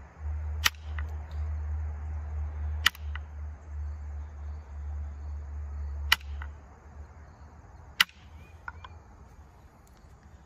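Antler billet striking a flint point to knock off flakes: four sharp clicks of percussion, a few seconds apart, with a few fainter ticks between them. A low rumble runs underneath for the first six seconds or so.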